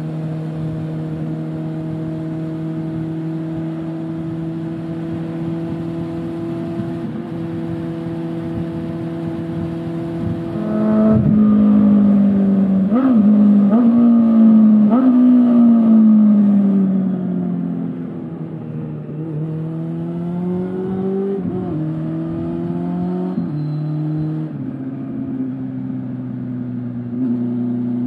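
Honda CB400SF inline-four through a Yoshimura slip-on exhaust. It holds a steady pitch for about ten seconds, then opens up loudly about eleven seconds in and revs high for several seconds. The pitch then falls away, climbs again in a few short rising sweeps, and settles to a steady, lower drone near the end.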